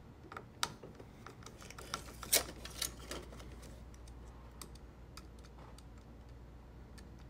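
Light, scattered clicks and ticks of a Phillips screwdriver seating in and turning out a small screw in an Epson 8550 printer's plastic frame, most of them in the first three or four seconds.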